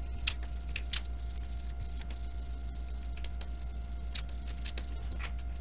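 A wax crayon scratching on paper in a handful of short strokes, a few in the first second and a few more near the end, over a steady low hum.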